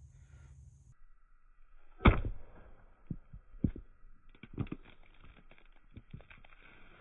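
Irregular dull thumps from gloved hands gripping and squeezing a plastic bottle covered in elephant-toothpaste foam. The loudest comes about two seconds in.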